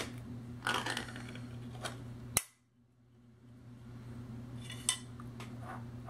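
Ring-pull lid of a metal can being opened: a snap as the ring is lifted, a scraping tear as the lid is peeled back, then a sharp click as it comes free. A few seconds later there is a light metallic click as the loose lid is set down.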